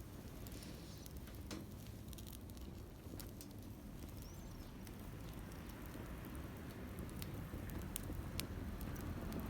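Scattered light clicks and patter over a low steady rumble, with one short high chirp about four and a half seconds in.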